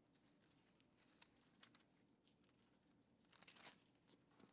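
Faint rustle and crinkle of thin Bible pages being turned by hand: a few short crinkles, then a longer rustle a little past three seconds in, against near-silent room tone.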